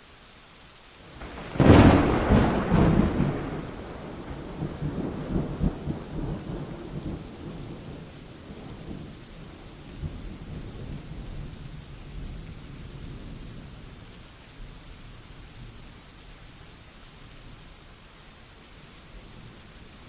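Steady rain with a sharp thunderclap close by about two seconds in, followed by rolling thunder that rumbles on and slowly dies away over the next dozen seconds.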